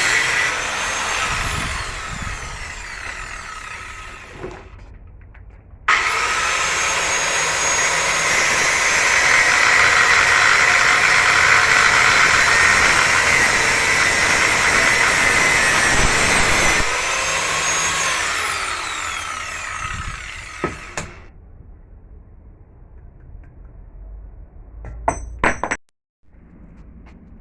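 Angle grinder on metal: it winds down at first, starts abruptly about six seconds in and grinds steadily, then spins down with a falling whine and stops. A few sharp clicks follow near the end.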